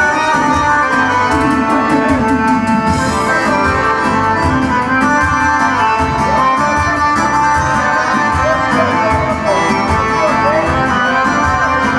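Live accordion music: a Dallapé piano accordion playing the melody over electronic keyboard backing with a steady beat.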